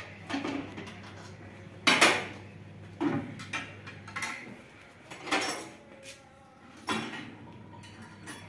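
Irregular metallic clanks and clinks, about six in all, from hand tools and metal fittings while a combine harvester's batteries are being unfastened and taken out; the loudest clank comes about two seconds in.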